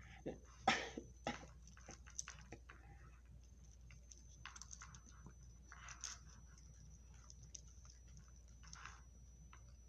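A dog eating from a plastic bowl: irregular chewing clicks, the loudest two about a second in, then fainter and scattered.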